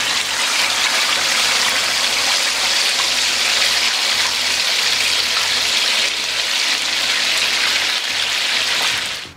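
Whole steamed, marinated chicken just lowered into hot oil in a kadai, deep-frying with a loud, steady sizzle that stops abruptly near the end.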